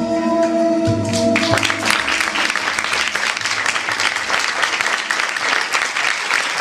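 Music of sustained keyboard-like tones ends about a second and a half in, and an audience bursts into applause that keeps going.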